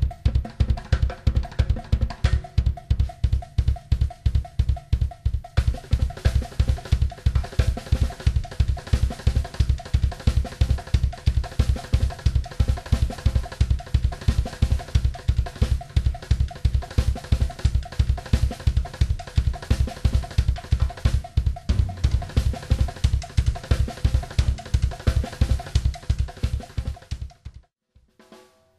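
Drum kit played as an ostinato: a fast, even bass-drum pulse under snare strokes, with more cymbal and high-end coming in about five seconds in. The playing stops suddenly near the end.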